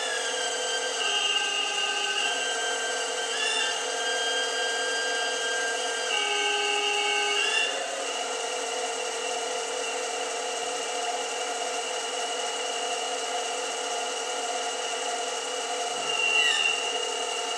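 Hydraulic pump of a 1:8 scale model Caterpillar 390D excavator running with a steady whine while the boom, stick and bucket move. Its pitch shifts several times as the load changes.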